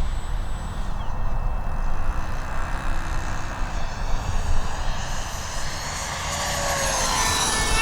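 Radio-controlled model aircraft flying over, its engine whine growing louder and rising in pitch over the last few seconds as it approaches.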